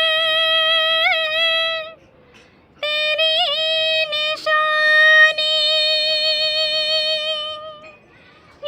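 A woman singing an old Hindi film song without accompaniment, in a high voice with vibrato: she holds one note for about two seconds, pauses briefly, then holds a long note for about five seconds.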